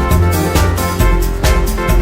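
Background music with a steady beat: bass line and drums under sustained chords.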